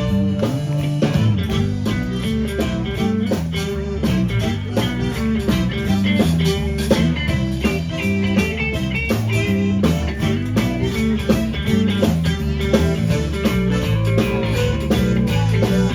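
Blues-rock band playing an instrumental break between verses of a song, guitar to the fore over bass and drums.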